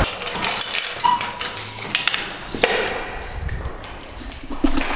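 A key turning in the lock of a metal-framed glass door, with keys clinking on their ring and several sharp clicks and knocks of the lock and door in the first three seconds, and another knock near the end.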